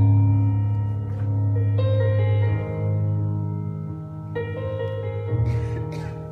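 Slow piano music: sustained chords over a held deep bass note, with new chords entering about two seconds in and again past four seconds.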